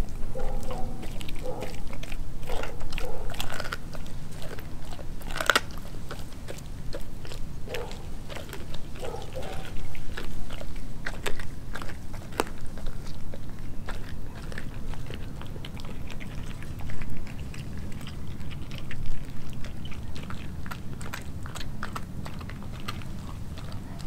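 Doberman chewing raw pork skin: irregular biting and chewing clicks, with one sharper snap about five and a half seconds in.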